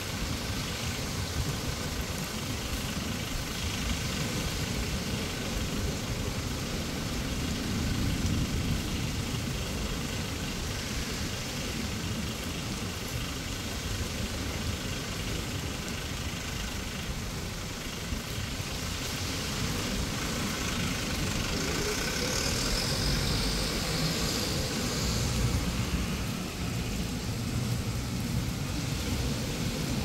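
Wind buffeting the microphone with a low, uneven rumble, over the hiss of surf washing on a sandy beach. The wash swells louder a little after the middle.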